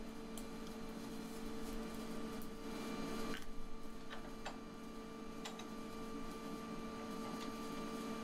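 Faint steady electrical hum with a light hiss, and a few soft clicks as a welded steel handle is shifted in a bench vise.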